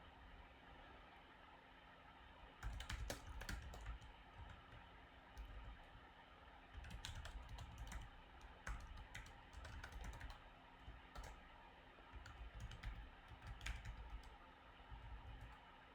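Computer keyboard typing in short bursts of keystrokes separated by pauses, starting a few seconds in, with dull thumps under the clicks.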